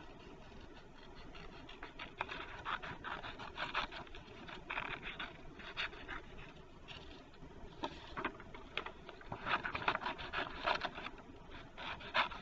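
Scissors snipping through paper in irregular runs of short cuts, getting louder from about two seconds in.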